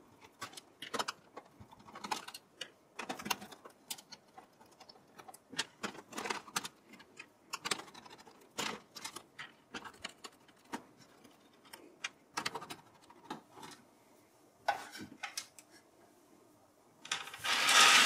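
Screwdriver turning out the small screws that hold a PC motherboard in a steel case: irregular small metallic clicks and ticks, with a louder click about 15 s in.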